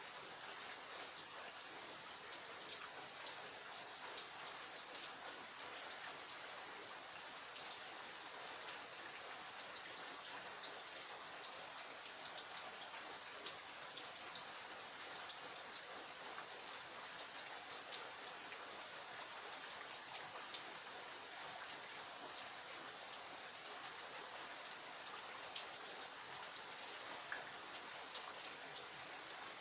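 Steady rain falling, a continuous hiss with many separate drops ticking on surfaces.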